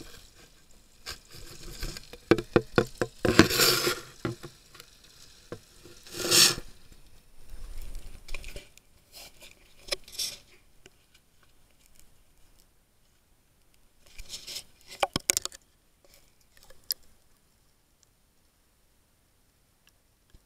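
Water sloshing and splashing in a metal bowl as a waterproof action camera is dipped in and out of it, with its housing tapping against the bowl, in several irregular bursts of splashes and taps. The bursts die away a few seconds before the end.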